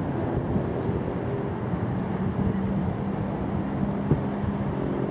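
Boeing 737-800's CFM56 jet engines heard from the ground on a display pass: a steady rumble, joined about two seconds in by a low steady hum, with one sharp click near the end.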